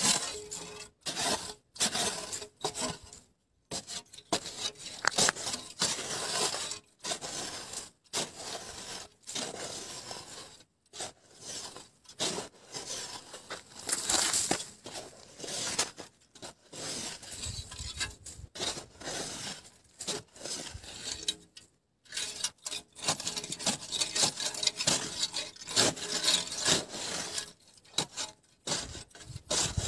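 Shovel digging into dry, sandy desert soil to open a burrow: repeated irregular scrapes with short pauses between them.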